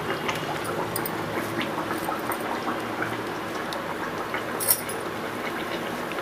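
Hot cooking oil sizzling and crackling in a kadai, a steady fizz with many small pops, with one sharper click about four and a half seconds in.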